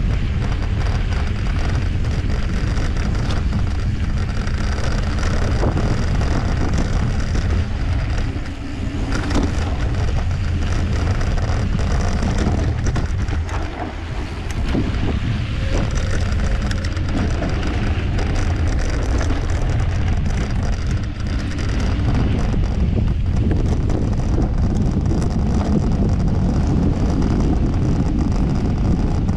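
Wind buffeting the microphone during a mountain bike ride, over the steady noise of knobby tyres rolling on a dirt trail and the bike rattling over bumps.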